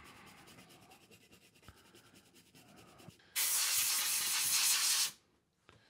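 A nylon-bristle brush scrubbing faintly on a circuit board. About three and a half seconds in, a can of compressed-air duster sprays a steady hiss for under two seconds, then cuts off suddenly, blowing the cleaning alcohol off the board.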